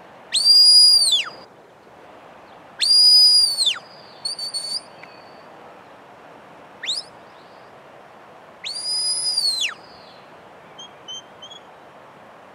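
Shepherd's whistle commands to a Border Collie working sheep: three long high whistles, each rising quickly to a steady note and dropping away at its end, with a few short toots and a quick rising chirp between them and faint short whistles near the end. A steady background hiss runs underneath.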